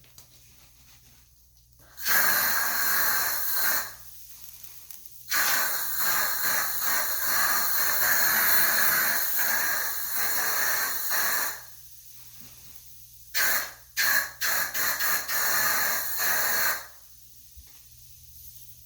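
Aerosol air freshener can spraying in hissing blasts: a spray of about two seconds, a long spray of about six seconds, then a quick series of short spurts.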